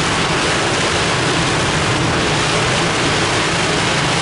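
Torrential cloudburst rain pouring down, a loud, dense, steady hiss.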